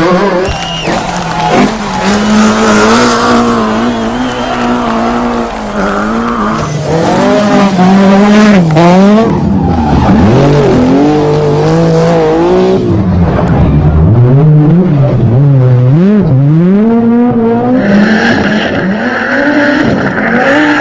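Group B rally car engine driven hard, its pitch climbing and falling again and again as the driver revs through the gears and lifts off. A higher, steadier tone joins near the end.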